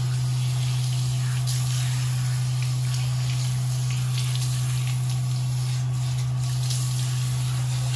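Handheld shower sprayer running steadily, water spraying onto a wet dog and a tiled shower floor during a rinse, over a steady low hum.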